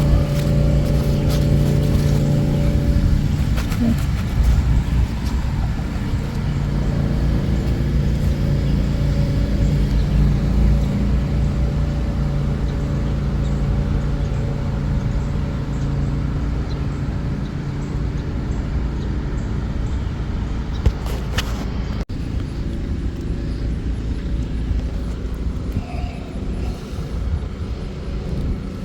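A steady low engine hum over a continuous rumble, with one brief click about three quarters of the way through.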